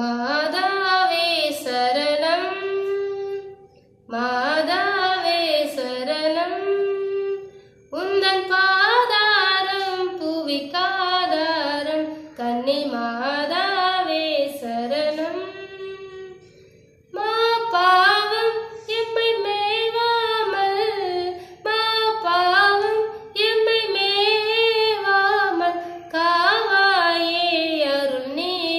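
A woman singing solo with no accompaniment, in melodic phrases of about four seconds, each followed by a brief pause for breath.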